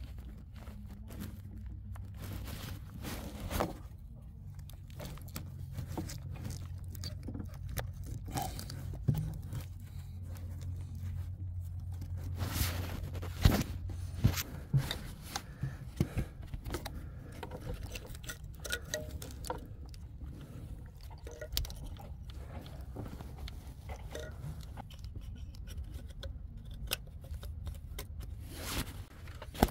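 Irregular metallic clicks, knocks and scrapes of hand work on car parts, with a low steady hum underneath that weakens about halfway through.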